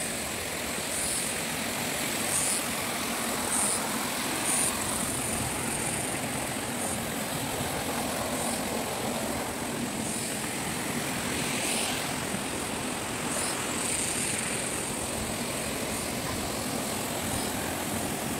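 A stream's current rushing steadily, an even wash of noise, with a thin steady high whine above it.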